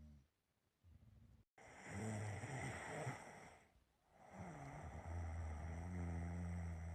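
A person snoring: two long snores, each a low drone over a breathy hiss, the second lasting about three seconds, after the tail of an earlier one.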